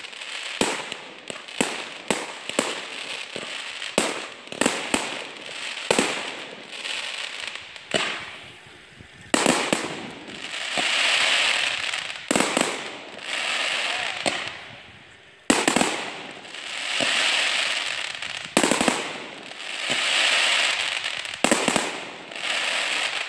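Fireworks display: a quick string of sharp bangs, one or two a second. From about ten seconds in come single loud bangs, each followed by a crackling rush that swells and fades over a second or two.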